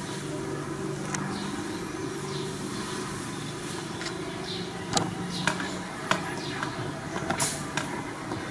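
Steady low background hum with a few short, faint clicks and ticks scattered through it.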